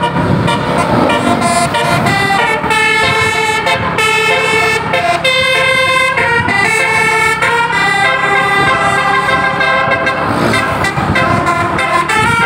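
Bus's basuri musical air horn playing a melody: several horn tones sound together and step from note to note without a break.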